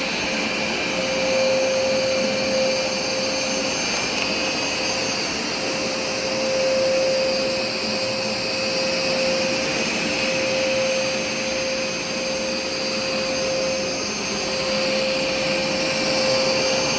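Hoover SmartWash Automatic carpet cleaner running steadily while shampooing carpet: a constant motor hum with a high whine over a rushing hiss, swelling and easing slightly in loudness.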